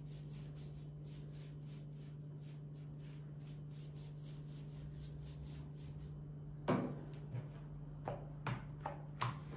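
Silicone pastry brush stroking melted butter over a thin sheet of rolled dough: soft, rhythmic swishes about three or four a second over a steady low hum. Near the end a sharp knock, then several lighter taps as the dough is lifted and handled on the table.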